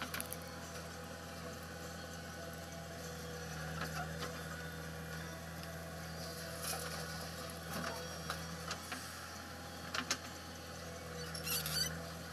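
JCB backhoe loader's diesel engine running steadily as it digs and dumps soil, the engine note swelling twice under load. A few short clanks and scrapes from the bucket and soil are heard over it.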